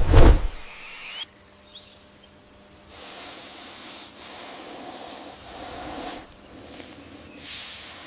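A snake hissing: one long airy hiss of about three seconds, then a shorter one near the end. A deep boom dies away at the very start.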